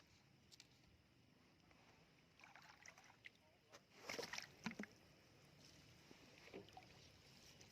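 Faint water sloshing and splashing, as of someone wading through shallow seawater, with a short cluster of louder splashes about four seconds in.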